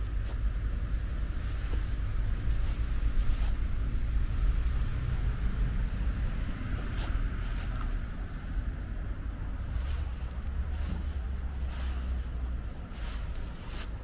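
Outdoor ambience: a steady, fluctuating low rumble with a hiss, broken by several short clicks.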